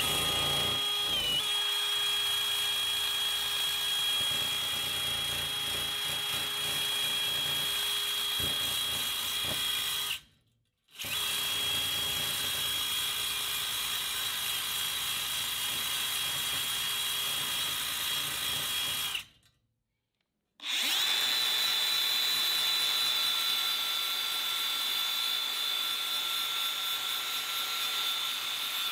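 Cordless drill spinning a small abrasive bristle wheel against a rusty steel wheel rim to strip old paint and rust: a steady motor whine over a scrubbing hiss, broken twice by short silences. After the second break, about two-thirds in, a cordless angle grinder with a stripping disc runs against the steel, its whine slightly higher.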